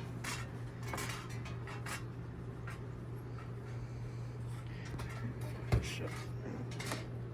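Scattered light clicks and knocks of a small vintage Windsor box fan being handled before it is switched on, over a steady low hum.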